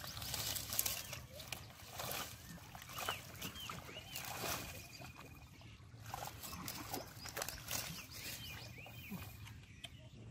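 Wet rustling, tearing and squelching as water plants are pulled up by hand out of shallow mud and water. A bird calls in short arched chirps now and then.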